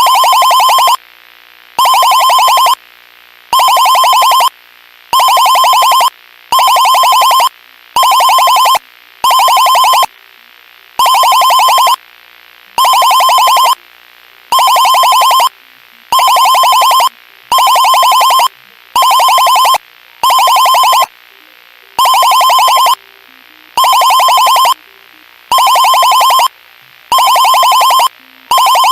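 Synthesized emergency alert alarm: a loud, buzzy electronic tone sounding in pulses about a second long with short gaps between them, some seventeen times, over a much fainter steady sound in the gaps.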